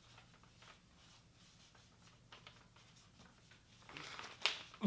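Mostly near silence, with faint pen-on-paper scratching. Near the end paper rustles, with one sharp tap.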